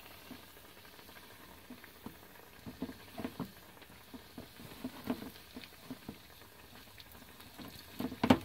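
Soft, irregular wet squishes and taps of a gloved hand turning fish pieces in a tub of wet batter, over the faint steady sizzle of fish frying in hot oil. A louder knock comes near the end.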